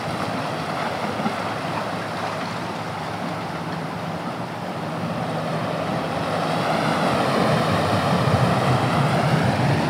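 Sea surf washing over and breaking among shoreline rocks, a steady rushing wash that grows louder over the last few seconds, with a faint low steady hum underneath.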